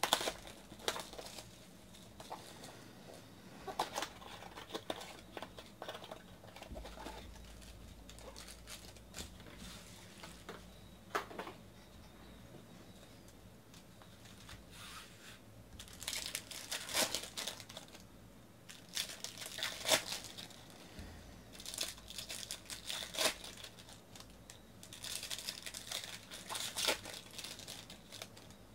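Hands opening a cardboard box of Bowman's Best baseball cards and tearing into its foil card packs. Scattered light clicks and rustles give way to denser bursts of crinkling and tearing in the second half.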